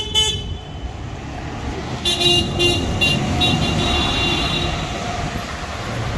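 Single-deck bus pulling away with its engine running, horn tooting as it goes: a short blast at the start, then a run of quick toots about two seconds in and a longer held note.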